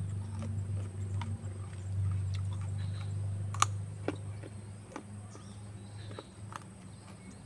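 Biting and chewing a raw carrot: irregular sharp crunches over a steady low hum.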